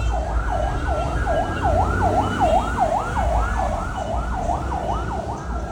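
A siren wailing in a fast yelp, its pitch sweeping down and up about three times a second, over a steady low traffic rumble.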